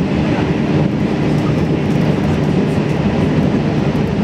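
JR Central 313 series electric multiple unit running along the line, heard from inside the front car: a steady running noise of wheels on rail and motors. A faint steady tone sits in it during the first couple of seconds.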